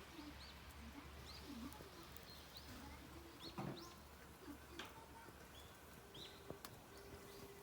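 Faint bird chirps, short rising-and-falling calls repeated every second or so, with a few soft clicks over a quiet background.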